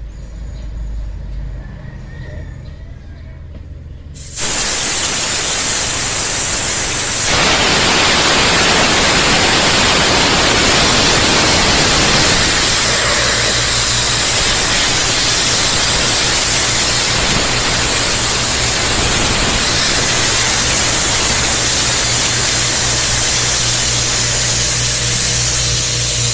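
Compressed air hissing from an air nozzle as it blows dust out of an air cleaner filter, starting about four seconds in and growing louder a few seconds later. A low steady hum runs underneath.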